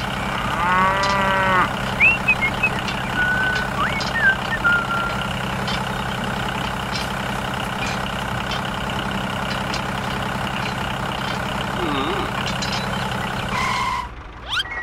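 A cow moos once, about a second in, over a steady diesel tractor engine idling; a few short high chirps follow. The engine sound cuts off suddenly near the end.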